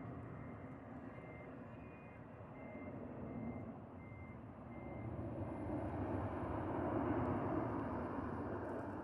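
Jet airliner flying overhead, its engine rush swelling loudest in the second half. A repeating high electronic beep, about one and a half a second, sounds over it and fades out past the middle.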